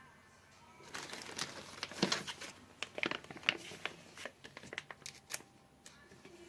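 Packaging being unwrapped by hand: crinkling and rustling with small sharp clicks of handling, starting about a second in.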